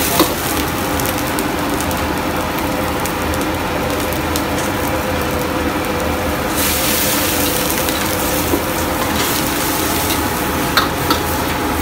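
Chicken and vegetables sizzling in a wok of bubbling sauce as a metal ladle stirs and scrapes them, over a steady hum. The sizzle grows louder and hissier for a couple of seconds past the middle, and the ladle clicks sharply against the wok a few times near the end.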